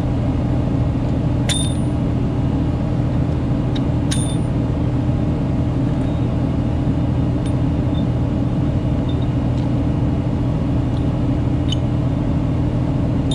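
Work truck's engine running steadily, driving a hydraulic pump through its power takeoff to feed an impact wrench: an even, low drone. Two sharp clicks stand out, about a second and a half in and again about four seconds in.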